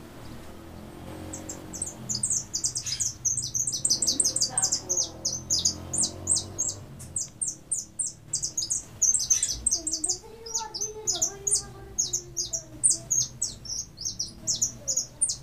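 A caged jilguero finch singing a long, rapid run of high twittering chips and trills, several notes a second, which starts about a second and a half in.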